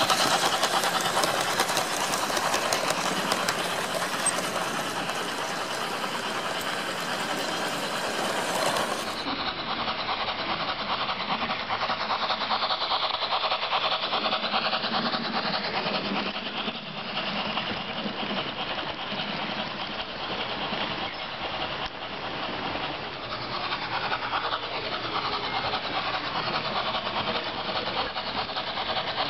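HO-scale Märklin model trains running on a layout: a steady, fine, rapid clatter of wheels over the rails. About nine seconds in, the sound turns duller.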